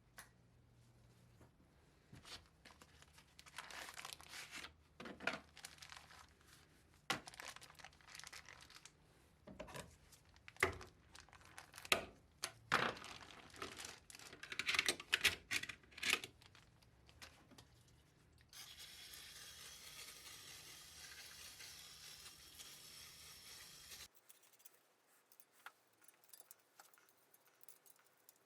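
Crinkling and tearing, like plastic or paper being handled and ripped, in a string of short crackles, followed by a steady hiss lasting about five seconds.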